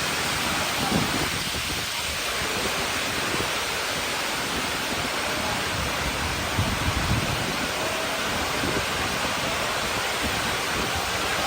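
Heavy storm rain and wind, a steady rushing noise with a few gusty swells.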